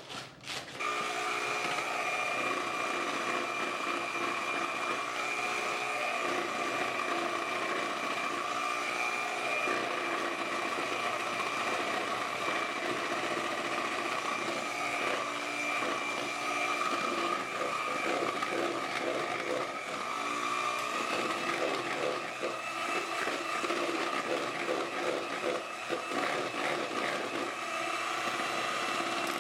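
Electric mixer running steadily as it beats chocolate cake batter in a bowl, a continuous motor whine.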